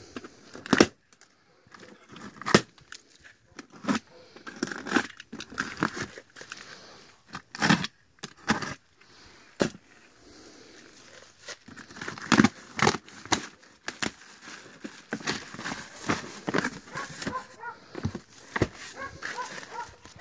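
Cardboard box being opened: a utility knife slitting the packing tape, then the cardboard flaps ripped and pulled back, with irregular scrapes, rips and knocks.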